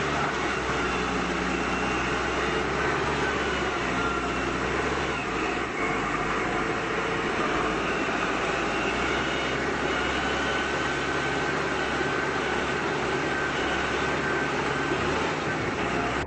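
Engine of a mini tractor loader running steadily, with a short dip in level about five and a half seconds in.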